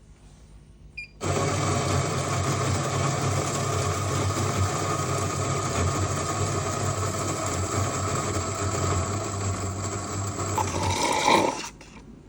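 Coffee machine running with a loud, steady buzz. It starts about a second in, changes briefly near the end and then cuts off suddenly.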